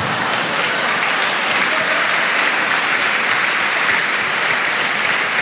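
Audience applauding steadily: many hands clapping at once.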